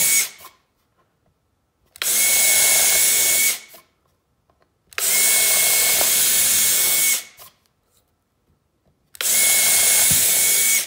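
Cordless drill boring starter holes for a scroll-saw blade through stacked quarter-inch birch plywood. It runs in short bursts of about one and a half to two seconds, each at a steady pitch: one ends just at the start, then three more follow with silence between them.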